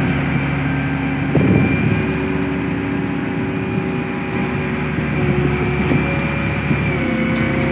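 Ship's deck crane machinery running under lever control: a steady drone with several held tones that step up and down in pitch every second or two as the joysticks are worked. A brief clatter about a second and a half in.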